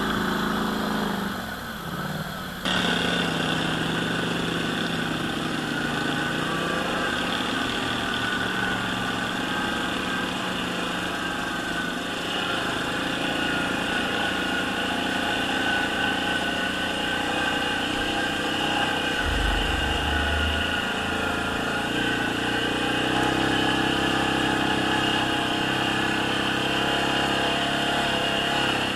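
ATV engine running steadily under way, with a steady high whine over it. The sound changes abruptly near three seconds in, and there is a brief low thud about two-thirds of the way through.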